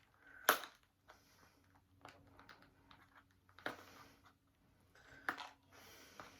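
Fingers handling and picking at a small boxed USB-C hub's packaging: soft scratching and rustling with a few sharp clicks, about half a second, three and a half and five seconds in.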